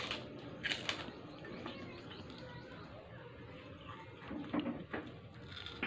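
Crunching bites of crispy prawn crackers (keropok), with loud sharp crunches about three quarters of a second in, and a short low sound about four and a half seconds in.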